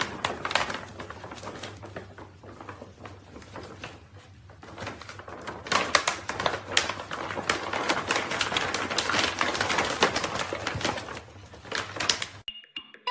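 Crinkling and rustling of a stiff, foil-lined dog-food bag as puppies scramble inside and over it, a dense run of sharp crackles that gets busier and louder about halfway through and stops suddenly just before the end.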